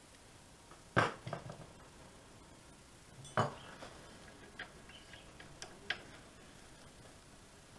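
Scattered clicks and light knocks of hands and a small tool working on a VW RNS510 navigation radio's circuit board and metal chassis. A sharper knock comes about a second in with a few quick clicks after it, another about three and a half seconds in, then lighter ticks.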